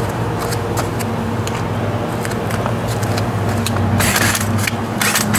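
Scrapes and light clicks of the scooter's plastic front body panel being handled and pressed into place, with two louder scraping rubs about four and five seconds in, over a steady low hum.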